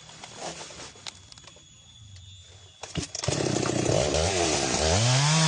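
Two-stroke chainsaw started up: after a few quiet clicks it catches about three seconds in, its pitch wavers and dips, then it revs up and holds a steady high pitch.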